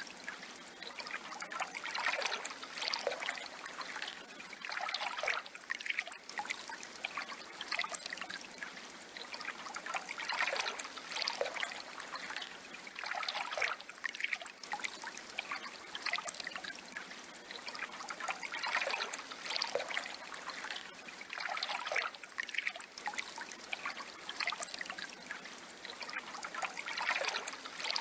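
Water trickling and splashing steadily, swelling into brighter splashes every few seconds.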